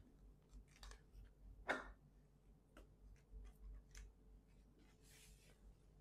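Quiet handling noises of perm-setting: scattered small clicks of plastic perm rods and a comb, with one sharper click about two seconds in and a short rustle near the end as a comb is drawn through the hair.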